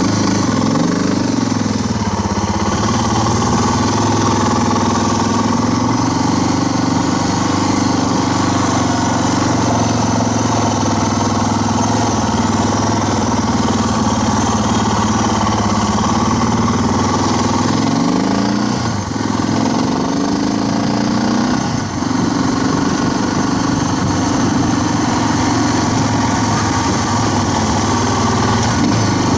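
Single-cylinder motorcycle engine idling, with the revs briefly rising and falling about a second in, twice around eighteen to twenty-one seconds, and again near the end.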